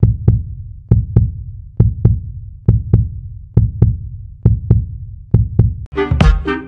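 Heartbeat sound effect: low double thumps, seven pairs a little under a second apart. Near the end a music track with a steady beat starts.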